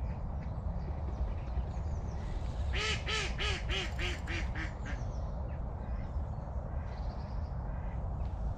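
A duck quacking a quick run of about eight quacks, each fainter than the one before. The run starts about three seconds in and lasts about two seconds, over a steady low rumble.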